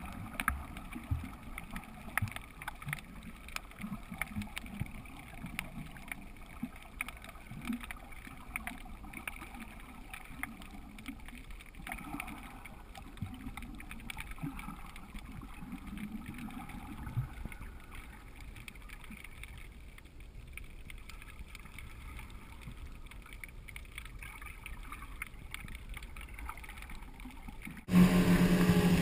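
Underwater sound picked up inside a GoPro housing while snorkeling: a steady muffled water noise with many faint scattered clicks and crackles. About a second before the end it cuts suddenly to a boat's outboard motor running loudly at speed.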